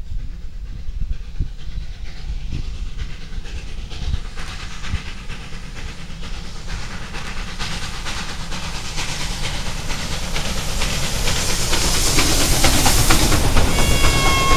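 Ol49 steam locomotive approaching and passing, its regular exhaust beats and steam hiss growing louder as it nears, then its coaches clattering by over the rail joints. A short high-pitched multi-note tone sounds near the end.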